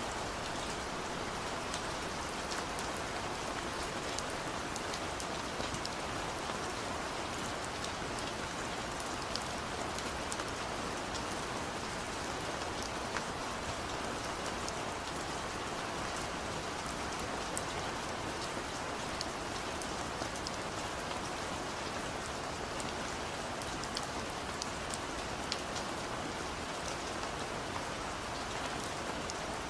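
Steady rain falling, an even hiss with many small distinct drops tapping on a surface.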